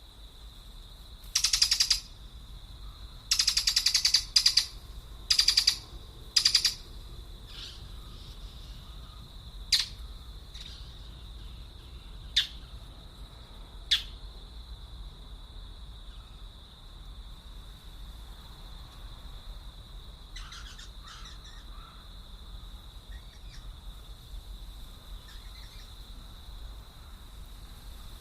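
Birds calling: a run of loud, harsh, rasping calls in the first seven seconds, then three sharp single chirps spaced a few seconds apart and fainter calls later, over a steady high-pitched hum.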